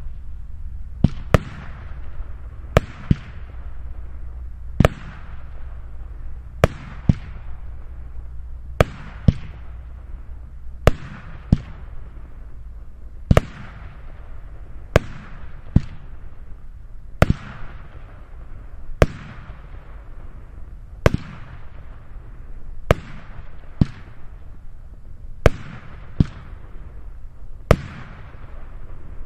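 Weco Profi Line 8.9 firework battery firing shot after shot: about two dozen sharp bangs, roughly one a second and some in quick pairs, each followed by a short fading hiss as the tailed stars burn out.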